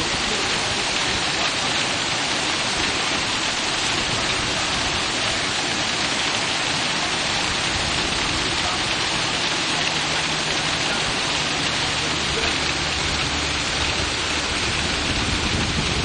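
Heavy rain falling steadily in a hailstorm, a dense, even hiss of drops on roofs and ground.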